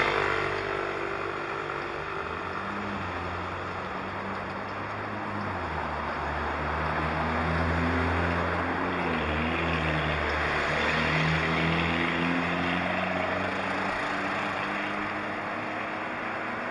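Road traffic heard on the move: a motor vehicle's engine running close by, its pitch shifting a few times, over a steady rush of wind and road noise.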